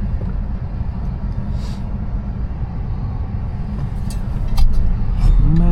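Steady low rumble of tyres rolling on a snowy road, heard inside the cabin of a Tesla electric car, with the front and rear defroster fan blowing and a few light clicks. It grows a little louder about four and a half seconds in.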